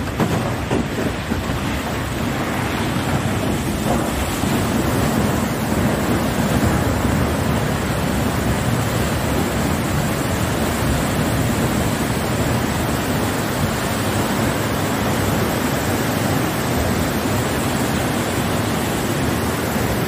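Water gushing in a torrent from a dam's outlet gate opened for the first time in years: a loud, steady rush of pouring water and spray.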